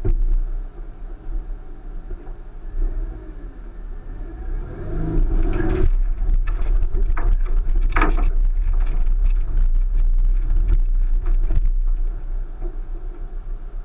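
1999 Subaru Forester's flat-four engine pulling under load up a rocky climb, heard from inside the cabin. About five seconds in it revs up and gets louder, and a run of knocks and clunks follows for several seconds as the car bumps over the rock.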